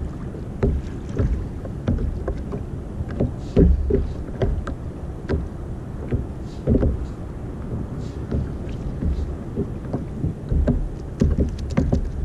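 Small waves lapping and slapping against the hull of a sit-on-top kayak in irregular splashes, over a low wind rumble on the microphone.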